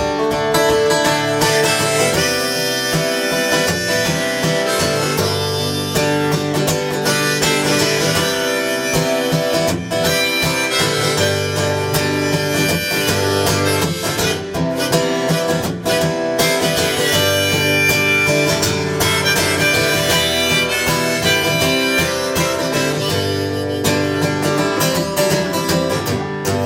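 Harmonica playing a melody over a strummed acoustic guitar: an instrumental break between verses of a folk song, with no singing.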